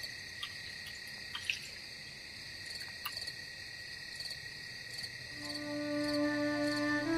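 Crickets chirping steadily in a pulsing night chorus, with a few faint clinks of steel utensils in the first three seconds. Soft music with long held notes comes in about five and a half seconds in and grows louder.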